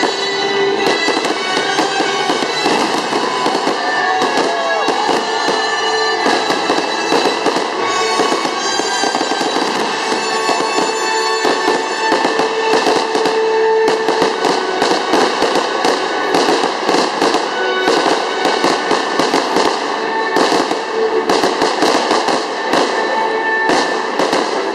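Fireworks going off in rapid, dense bangs and crackles, with music playing underneath.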